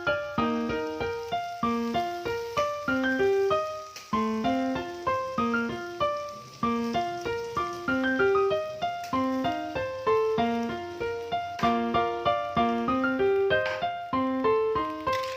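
Background music: a bright, quick piano or keyboard melody of short plucked-sounding notes over a steady beat.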